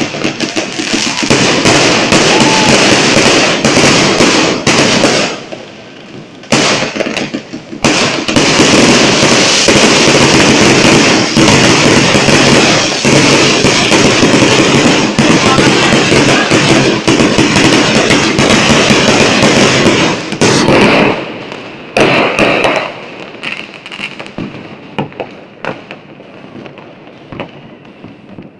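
Aerial fireworks going off in a dense barrage of bangs and crackling, with a short lull about five seconds in. After about twenty seconds the barrage thins out to scattered pops.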